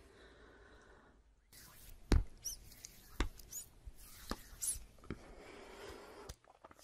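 Close-up ASMR handling sounds: a handful of sharp clicks, roughly one a second, with a couple of short high squeaks between them.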